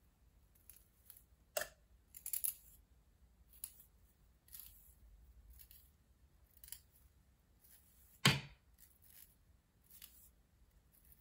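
Scattered small clicks and rustles of a comb and hands working the hair of a lace wig at the hairline, with a few sharper snaps; the loudest comes about eight seconds in.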